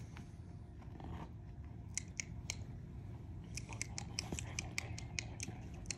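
German wirehaired pointer puppy gnawing on a training bumper, its teeth making faint, irregular clicks: a few about two seconds in, then a quicker run of them near the end.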